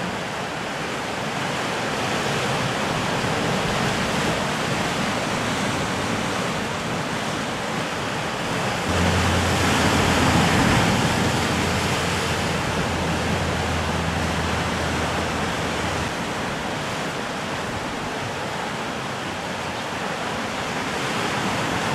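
Sea surf washing and breaking against a volcanic rock shoreline, a steady rushing noise that swells louder as a wave breaks about nine seconds in.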